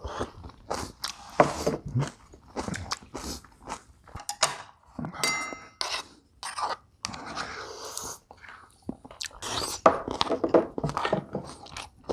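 Close-miked chewing and crunching of bibimbap with crisp young radish kimchi, in irregular bites and munches. A short ringing tone sounds about five seconds in.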